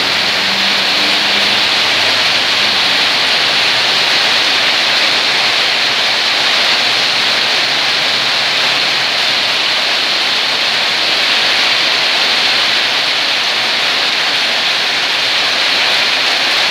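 Heavy downpour: a loud, steady hiss of rain falling on a flooded road and pavement.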